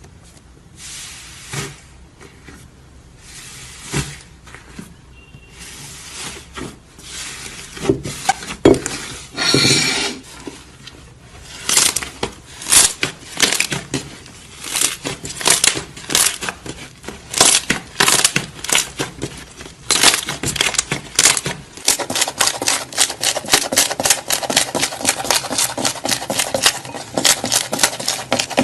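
Crunchy slime being handled, giving sharp crackling pops. The pops are scattered at first, and from about twenty seconds in they come fast and dense.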